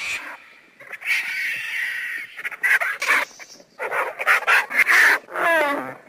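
Cinereous vulture giving a series of harsh, rasping hisses and grating calls in bursts, then a call that slides down in pitch near the end.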